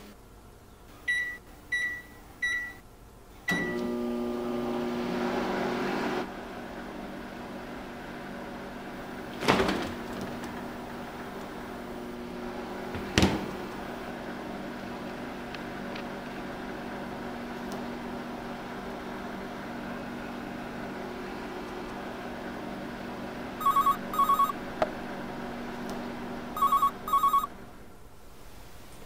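Microwave oven keypad beeping four times, then the oven starting up and running with a steady hum. Two sharp knocks come partway through. Near the end a telephone starts ringing, twice, each ring a quick double burst.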